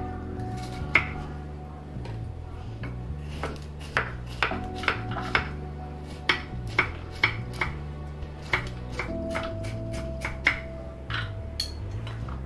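A knife chopping bitter gourd into small pieces on a chopping board: a run of irregular sharp taps, several a second, over soft background music.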